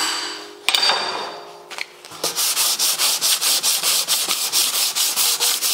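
A last hammer tap rings out on the steel fender about a second in. From about two seconds in, a hand sanding block with 80-grit paper on a hard pad is stroked quickly back and forth over the hammered steel fender, at about four strokes a second.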